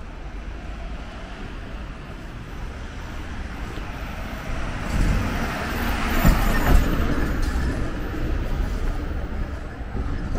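Small box truck driving past close by on a city street: the traffic noise swells from about four and a half seconds in and peaks with two dull thumps half a second apart as it goes by, then eases off.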